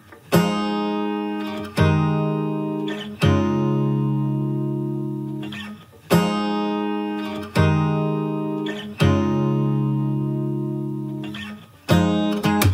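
Background music: an acoustic guitar strumming chords, each struck and left to ring out before the next, about every one and a half seconds.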